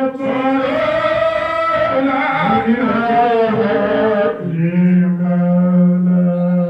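A man chanting an Islamic devotional song into a microphone, his melody gliding up and down, then holding one long steady note from about halfway through.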